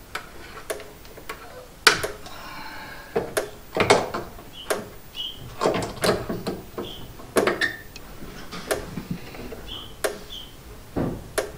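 A string of sharp clicks and knocks, roughly one every second or so, from hands working the controls and wiring of a Power Wizard PW18000 electric fence charger while it is switched from low to high power. Faint short high chirps come in between the clicks.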